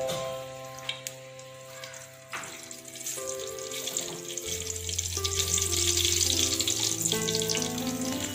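Hot oil sizzling in a frying pan as mustard seeds go in, the sizzle building and growing louder from about halfway through. Soft instrumental music plays underneath.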